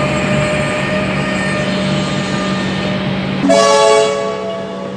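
Comeng electric train at a stand beside a station platform, its equipment humming steadily with a faint whine that dies away. About three and a half seconds in comes a short blast of a train horn.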